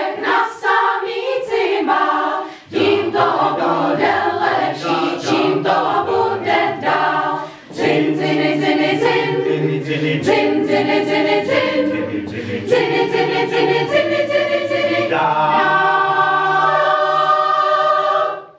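Mixed choir singing a South Bohemian folk song a cappella, with low men's voices joining about three seconds in. It closes on a long held final chord that cuts off sharply at the end.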